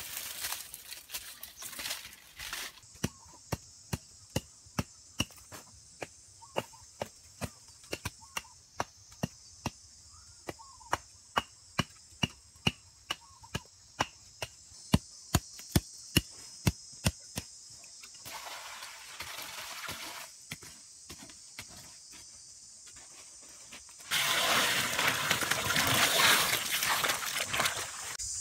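A long run of sharp tool strikes, about two a second, over a steady high insect drone. Near the end comes a louder rush of sloshing as hands work wet mud.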